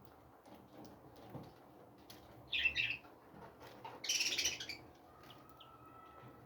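Small birds chirping in an aviary: two short loud bursts of high chirping, about two and a half seconds in and again about four seconds in, with a faint thin whistle-like note near the end.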